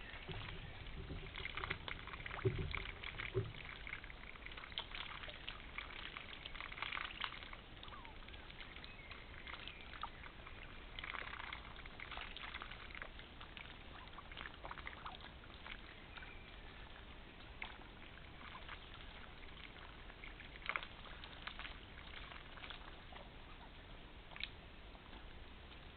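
Water splashing and trickling in small irregular dribbles and sloshes, with a few dull knocks about two to three seconds in.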